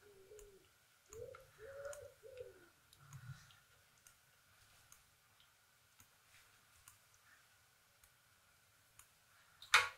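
A pigeon cooing faintly, a short phrase of a few soft notes in the first three seconds. A sharp click comes near the end, and faint ticks are scattered throughout.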